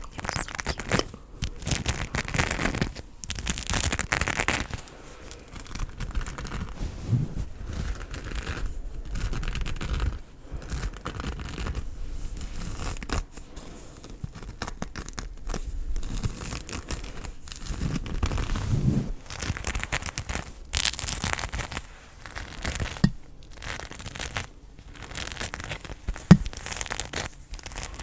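Close-up crackling and crinkling of an object being handled and scratched, in irregular runs broken by short pauses, with a few soft knocks.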